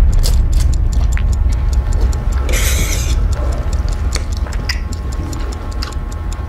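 Countdown-timer ticking sound effect, about four ticks a second, over a low steady rumble, with a short hissing burst about two and a half seconds in.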